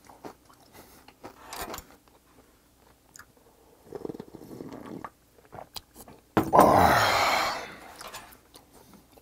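Close-miked eating sounds: chewing and small mouth clicks, then slurping hot broth straight from an earthenware pot about four seconds in. Then comes a loud, breathy, satisfied 'ahh' exhale after the broth, the loudest sound here.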